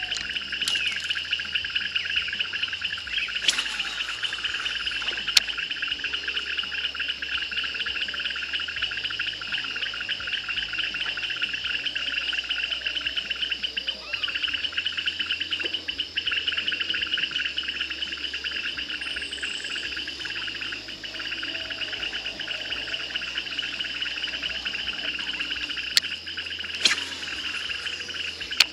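A dense, steady chorus of insects, a fine pulsing trill, with an occasional bird call over it. A few sharp clicks stand out, twice near the end.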